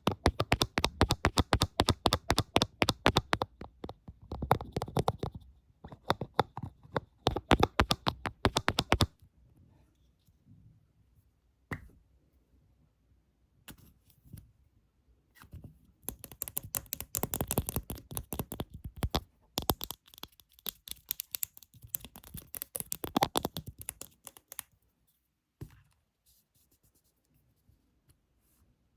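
Close-miked fingertip tapping and scratching, in quick runs of many small clicks. There are two long bursts, through the first nine seconds and again from about 16 to 24 seconds, with only scattered taps between them and little sound near the end.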